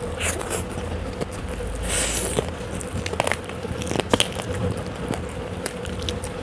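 Close-up eating sounds: biting, chewing and crunching, with scattered short clicks and crackles over a faint steady hum.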